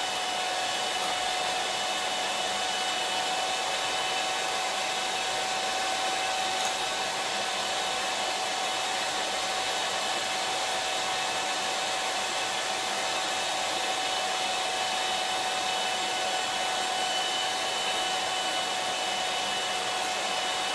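Small electric hand mixer running steadily at one speed, its beaters whisking instant cappuccino, sugar and hot water in a small glass into dalgona foam, with a steady whine over the motor noise. It is about three and a half minutes into whipping, and the mixture is slow to foam.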